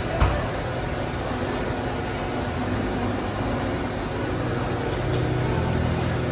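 Steady mechanical running noise with a low hum, and a single sharp knock about a quarter second in.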